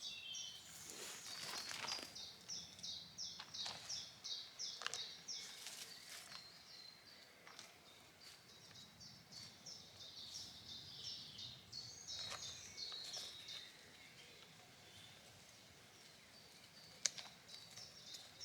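A small songbird singing faint runs of quick, high chirping notes, over rustling and a few knocks as a tarp shelter and its guylines are handled, with one sharp click near the end.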